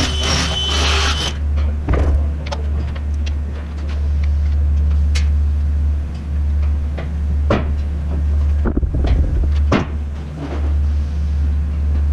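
Steady low machine drone with sharp knocks and clanks scattered over it, roughly one every second or two. A high steady tone with hiss cuts off about a second in.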